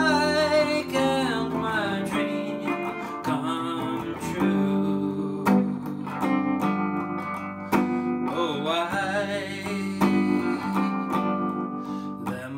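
Electric guitar, a Gibson ES-335 semi-hollow played through a Fender Princeton amp, strumming chords. It opens under a held sung note with vibrato, and a short sung phrase comes in about two thirds of the way through.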